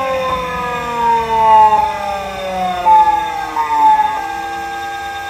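Small motor driven by a homemade scale-model VF (variable-frequency) inverter that simulates a Keikyu 1000 series Siemens GTO drive, whining as it slows: the pitch falls steadily, steps several times as the pulse mode changes, and settles into a steady tone about four seconds in.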